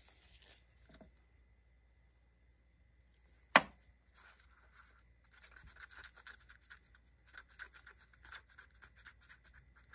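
Wooden toothpick stirring glitter into UV resin in a waxed paper cup: quick, scratchy scraping against the cup that starts just after a single sharp knock about three and a half seconds in.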